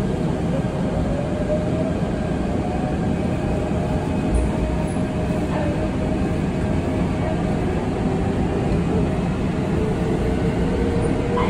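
Seoul Subway Line 2 electric train heard from inside the car as it pulls out of a station and gathers speed: a steady rumble of wheels on rail under a faint motor whine that slowly rises in pitch.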